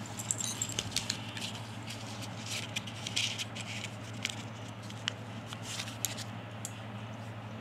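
Small paper-covered cardboard matchbox being handled and turned in the fingers: scattered light crackles and clicks of paper and card, over a steady low hum.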